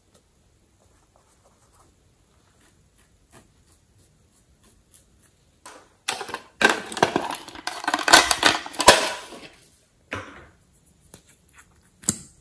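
Crackling and clicking of a rigid plastic container being handled: a few faint ticks, then about four seconds of dense, loud crackling with sharp clicks, and a couple of lone clicks near the end.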